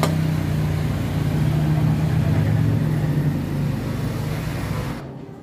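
A motor vehicle engine running steadily, cutting off suddenly near the end.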